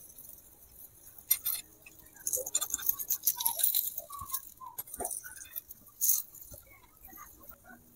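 A small spatula scrapes and clinks against a miniature black two-handled frying pan as a vegetable pancake fries in it. The scraping comes in bursts a little after the start, through the middle and again briefly about six seconds in.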